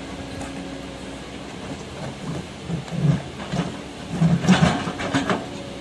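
Kobelco hydraulic excavator's diesel engine running while its bucket shoves a large boulder over rocky ground. Uneven rumbling and grinding of rock on gravel starts about halfway in and is loudest near the end.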